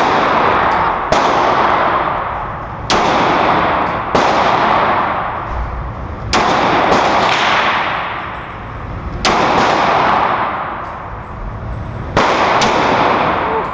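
A .40-calibre Glock pistol fired about nine times at an unhurried, uneven pace, one to three seconds between shots. Each shot trails off in a long echo.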